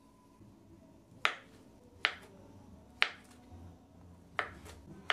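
Kitchen knife slicing a peeled banana into rounds on a wooden cutting board. The blade knocks sharply against the board four times, roughly a second apart.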